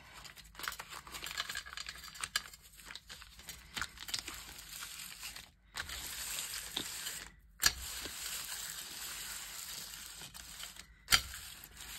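Crumpled paper rustling and crinkling as hands unfold it and smooth it flat, with a few sharper crackles.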